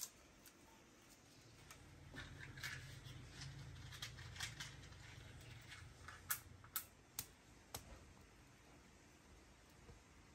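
Faint, scattered clicks and light snaps of small dry twigs being handled and laid as kindling, a sharp click at the start and a handful more in the middle, over a low hum.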